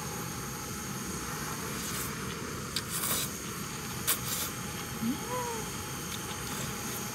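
Noodles being slurped from a bowl in a few quick sucks about three to four seconds in, followed by a short hum that rises and then falls in pitch, over a steady background hiss.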